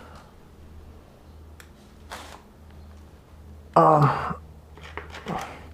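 A man's breathy sigh, then a short voiced sound like a hum or grunt, over a steady low hum, with a faint click before them.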